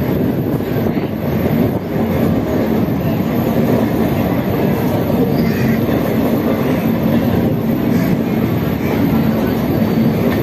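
Indian Railways passenger train running along the track, heard from an open window of the coach: a steady rumble of wheels on rails, with a steady low hum.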